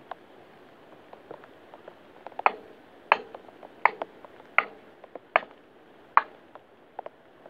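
Six hammer blows on the end of an excavator's hydraulic cylinder, each a sharp metallic clank with a short ring, about one every 0.7 s starting a couple of seconds in, driving the piston rod assembly into the cylinder. A few lighter taps come before and after.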